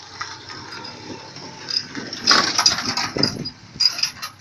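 A small pickup van pulling away along a dirt track, its engine running. About two seconds in, louder, uneven noise comes in and goes on in bursts.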